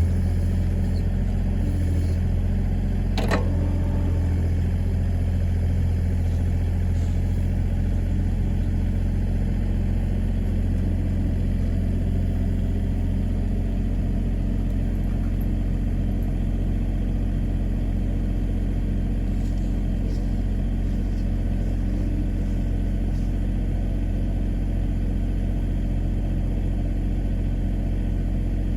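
Backhoe's diesel engine running steadily at a constant speed, with a single sharp knock about three seconds in.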